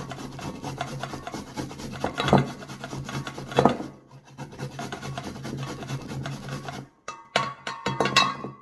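A fresh carrot being grated on a handheld flat metal grater over a stainless-steel bowl: rapid rasping strokes, two of them louder about two and three and a half seconds in, with a brief pause about seven seconds in.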